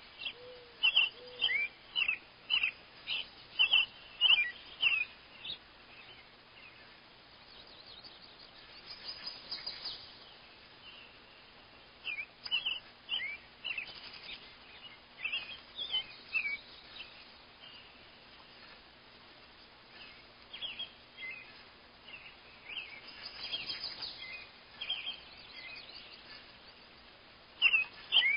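Wild birds calling: series of short, sharp chirping notes about half a second apart, loudest in a run during the first five seconds, then returning in shorter bouts with quiet gaps between.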